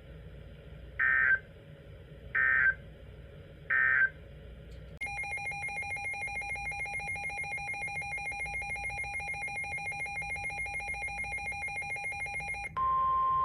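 Three short bursts of EAS (SAME) digital data tones, the end-of-message code that closes a weather radio alert. Then a steady electronic ringing tone, rapidly pulsing, for about eight seconds, which switches near the end to a single steady tone of about 1 kHz, the weather radio alert tone that opens the next warning.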